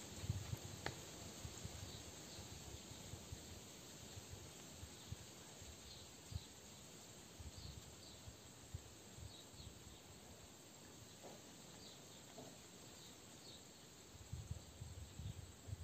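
Faint outdoor garden ambience: a steady hiss with short, high chirps every second or so, and low rumbling thumps on the microphone about a second in and again near the end.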